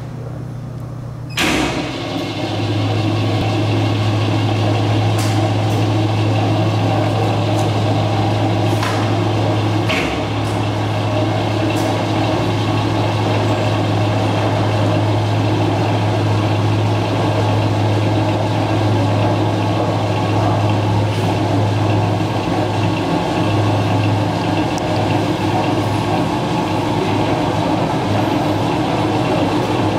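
Ransome 200P welding positioner's electric power-tilt drive starting with a sharp click, then running steadily with a low hum and gear whine as the table tilts up.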